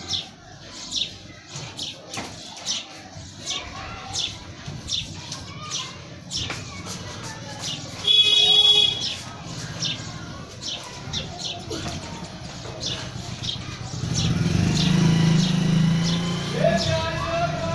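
Birds chirping in short, repeated high calls about twice a second. A brief louder pitched sound comes about eight seconds in, and a low hum with a steady tone fills the last few seconds.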